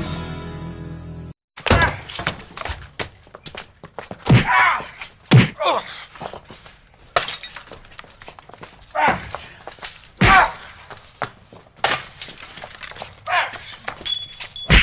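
Background music cuts off abruptly about a second and a half in. It is followed by a series of irregular knocks and thuds, some ringing briefly.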